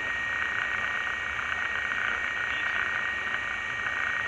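Diamond DA20 light aircraft's piston engine idling while taxiing, heard inside the cockpit as a steady drone with a steady high tone running through it.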